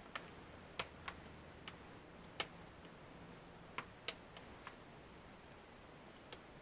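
About nine sharp plastic clicks and snaps at irregular intervals, the snap-fit clips of a Dell Chromebook 3100 2-in-1's display lid housing being worked by hand.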